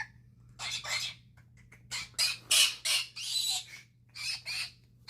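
Galah (rose-breasted cockatoo) giving a string of short, harsh, raspy squawking calls in several bursts.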